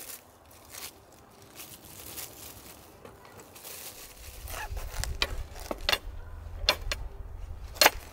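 Clear plastic bag rustling and crinkling as it is handled, with a run of sharp clicks in the second half, the loudest near the end, over a low rumble that starts about four seconds in.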